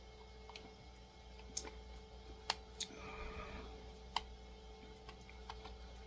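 A screwdriver working at a stuck small screw in a die-cast toy car's base: a few sharp clicks and a short scrape as the tip slips and bites, the screwdriver too large for the screw.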